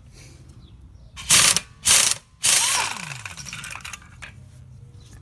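Impact wrench spinning off a car's wheel lug nuts in three bursts: two short, then a longer one of about a second and a half.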